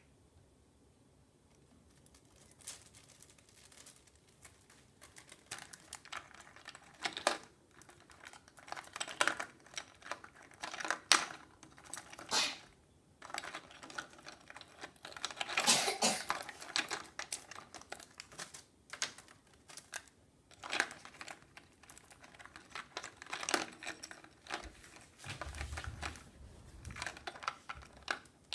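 Budgerigar picking plastic bottle caps out of a plastic tray and dropping them one after another: a run of irregular clicks and clatters of plastic knocking on plastic and on the cage's wire top.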